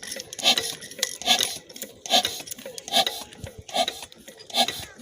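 Rhythmic rasping strokes, a little over two a second and evenly spaced, from hand work on the diesel engine's injector nozzle.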